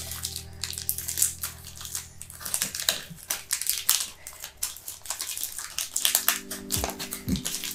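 Foil wrapper of a Pokémon Trading Card Game booster pack being crinkled and torn open by hand, making a dense run of irregular sharp crackles.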